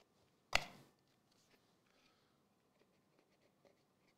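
One short, sharp knock about half a second in, a small cardboard trading-card box being set down or tapped against the table mat. Faint handling ticks follow.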